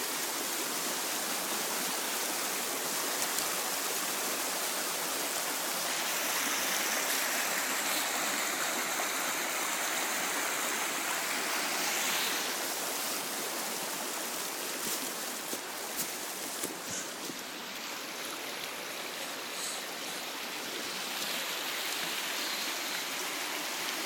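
Flooded creek in spate after heavy rain, its fast water rushing steadily over rocks in white rapids.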